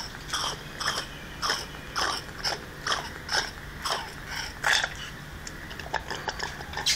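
A macaque sucking on a straw in a juice carton that is nearly empty: a series of short slurping sucks, about two a second.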